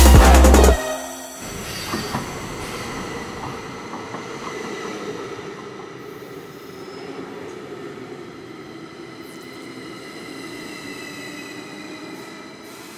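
Loud music with a heavy beat cuts off under a second in. After it, a New York City subway train runs with a steady rumble and several high, steady wheel-squeal tones, one gliding downward near the end, and slowly fades.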